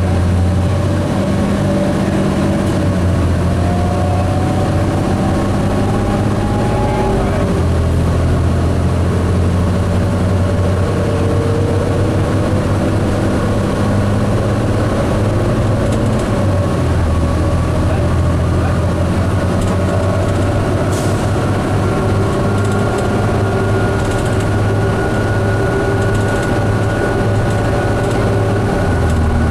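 2005 New Flyer D60LF articulated diesel bus, heard from inside, running under way: a steady loud engine drone with a whine that climbs in pitch. The pitch drops sharply about seven seconds in, as at a gear change.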